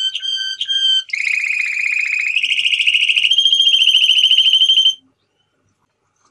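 Male domestic canary singing: three short notes, then fast rolling trills that step up in pitch twice, cutting off abruptly about five seconds in.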